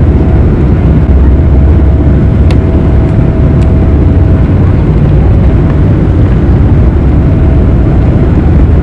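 Boeing 777-300ER's GE90 engines at take-off thrust heard from inside the cabin over the wing: a loud, steady low rumble mixed with runway roll noise, with a thin steady whine that fades out about halfway through.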